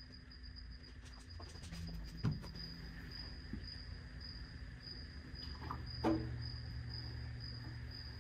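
Hydrolastic suspension service pump being worked by hand to adjust the ride height: two clunks of the lever and valve, about two seconds in and about six seconds in, the second louder, with a low hum over the last few seconds. A faint high chirp repeats about twice a second throughout.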